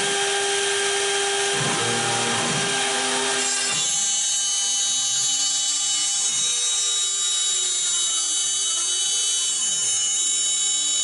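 CNC router spindle running with a small end mill cutting a profile through a plywood sheet, a steady machine whine made of several high tones. Other tones glide up and down as the machine moves the bit along the cut, and the sound shifts about four seconds in.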